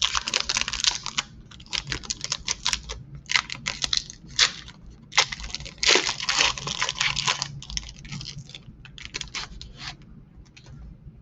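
Trading card pack wrapper being torn open and the cards handled: many short crinkles, rips and clicks in clusters, thinning out near the end.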